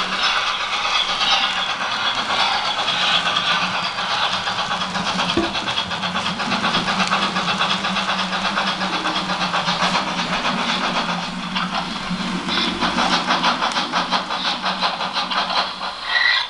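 Model steam locomotive running on a layout, with a fast, even, rhythmic chuffing over a steady low hum.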